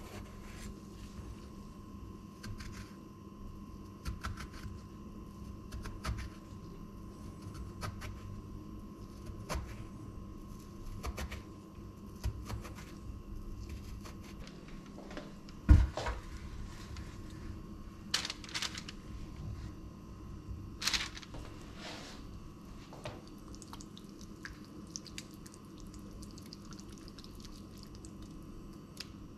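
Knife scoring eggplant halves on a wooden cutting board: a light tap of the blade on the board every second or two. A louder thump comes about halfway through, then a few sharp scraping clicks, all over a faint steady hum.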